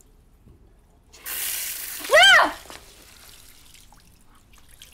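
Water running from a salon shampoo-basin tap with a hiss for about a second and a half, with a loud, brief squeal rising then falling in pitch near the end. Faint drips follow.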